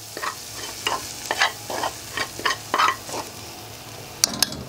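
Metal spoon scraping fried onion and pepper out of a hot frying pan into a steel pot in a run of short scrapes, over a faint sizzle. A few sharp metal taps near the end.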